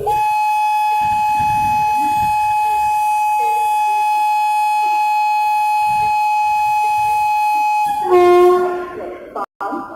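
Indian Railways locomotive horn blowing one long steady blast of about eight seconds, then shifting to a lower, fuller note for about a second near the end.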